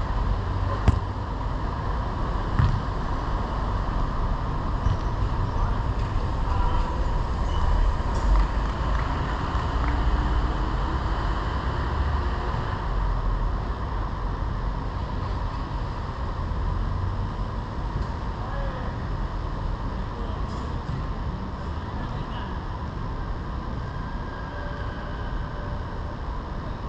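A steady low rumble on a GoPro's microphone at a football pitch, with faint distant voices. Two sharp knocks come about one and three seconds in.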